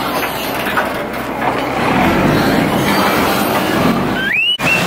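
A river boat's engine running with a steady rumble and noise while it waits at the pier. Near the end there is a brief rising squeal.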